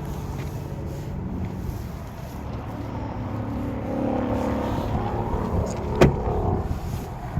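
A motor vehicle engine running, its sound swelling in the middle, with one sharp clack about six seconds in.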